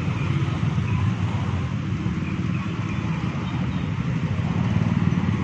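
Road traffic: a steady mix of motorcycle and car engines running.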